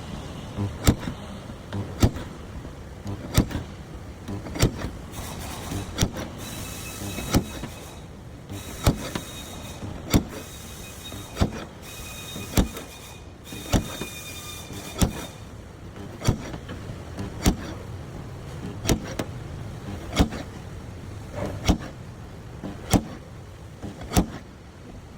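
Steady, evenly spaced hammer blows on the sheet metal of a car fender, about one every second and a quarter, as the fender's body line is worked back into shape. A hiss comes and goes in the first half.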